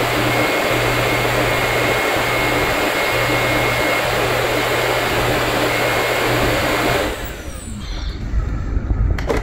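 Roborock S7 MaxV Ultra dock's self-empty fan running loud and steady with a thin high whine, sucking debris out of the docked robot's dustbin; it cuts off about seven seconds in. A couple of sharp clicks follow near the end.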